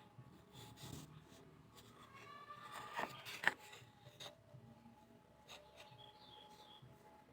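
Faint hand work on bamboo or wood: scattered sharp clicks and light rubbing, the loudest click about three and a half seconds in, over faint pitched tones.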